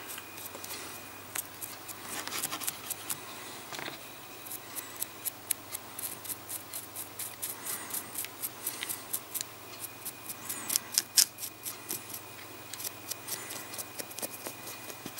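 Paintbrush bristles scratching over the raised scales of a snake miniature in quick, short strokes: a run of dry, irregular scratchy ticks that come in bursts.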